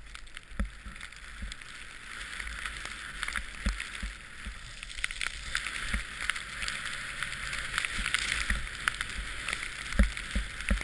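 Snowboard sliding through powder snow: a steady hiss that grows louder from about two seconds in, with irregular low thumps.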